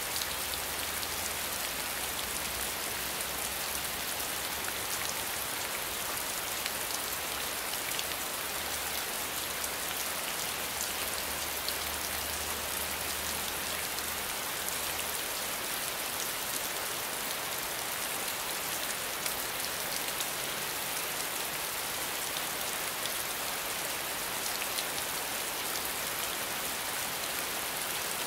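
Steady rainfall: a dense, even patter of raindrops falling on surfaces, with a faint low rumble beneath it that stops about halfway through.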